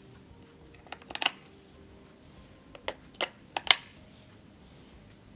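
AA batteries clicking and snapping into the plastic battery compartment of a HACH 2100Q turbidimeter. A few quick clicks about a second in, then a group of sharper clicks around three to four seconds, the loudest near the end of that group.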